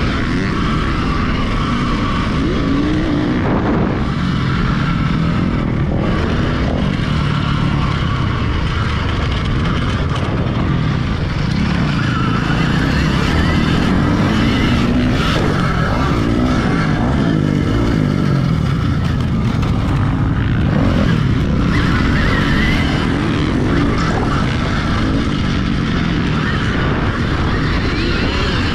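Alta Redshift MXR electric motocross bike's motor whining, its pitch rising and falling again and again with throttle and speed, over a steady rush of wind and track noise picked up by a helmet camera.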